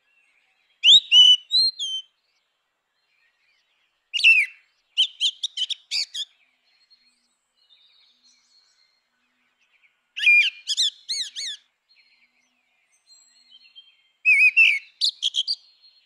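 Grey-winged blackbird singing: four short song phrases a few seconds apart, each a quick run of varied notes that slide up and down in pitch.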